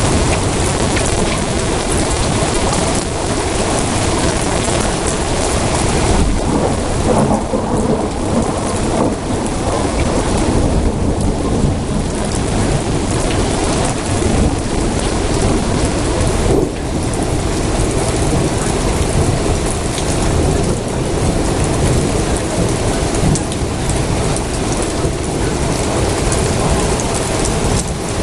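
Thunderstorm: heavy rain falling steadily with thunder rumbling through it.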